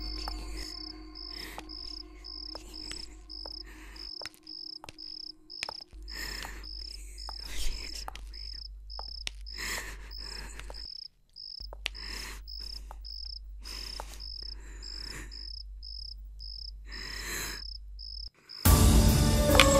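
Cricket chirping steadily, a high pulse repeating a few times a second, over a low hum and scattered soft knocks. Near the end, loud music comes in suddenly.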